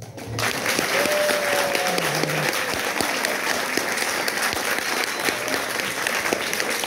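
Audience clapping steadily as a solo piano performance ends.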